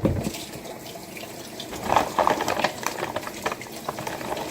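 Water running from a tap, with irregular splashing.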